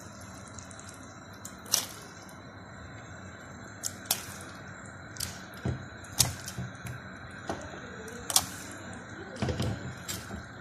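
A pot of water at a rolling boil, bubbling steadily, with irregular sharp clicks and splashes as string-tied stuffed crabs are dropped into it one at a time.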